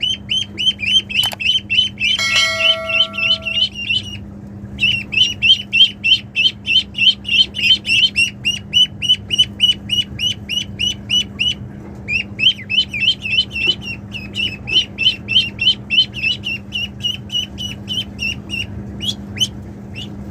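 Ducklings peeping: a fast, steady run of high, downward-slurred peeps, about three or four a second, broken by short pauses about 4 and 12 seconds in.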